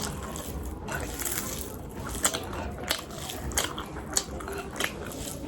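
Close-up mukbang eating sounds: chewing a mouthful of rice and chicken leg, with a string of irregular wet mouth smacks and clicks.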